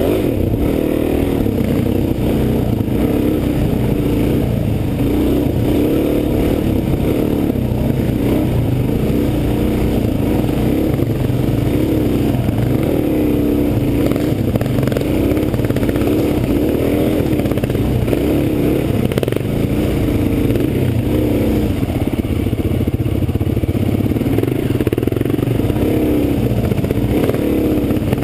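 Suzuki enduro motorcycle's engine running under load, close up from the bike itself, the revs rising and falling constantly with the throttle over rough ground, along with clattering from the bike over the bumps.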